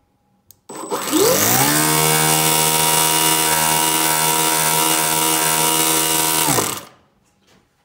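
Electric starter spinning over a Toyan FS-S100 four-stroke nitro engine: a rising whir about a second in, a steady spin for about five seconds, then a wind-down and stop. The engine doesn't catch, because the glow plug isn't firing.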